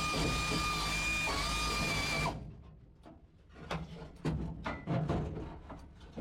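Campbell Hausfeld air nibbler, with a freshly replaced anvil and die, running with a steady high whine while cutting sheet steel, then cutting off suddenly about two seconds in. Music with drum hits follows.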